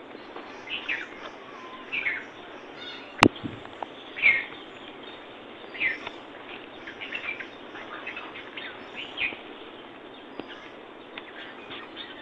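Small birds chirping: short, repeated chirps about once a second over a steady background hiss, with one sharp click about three seconds in.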